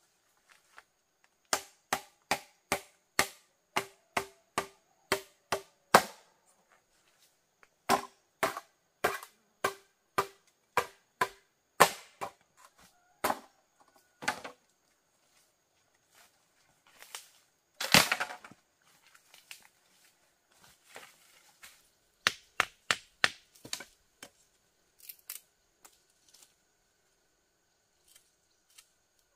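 Bamboo being chopped with a blade: sharp, slightly ringing strikes about three a second in several runs, with a longer cracking sound about two-thirds of the way through.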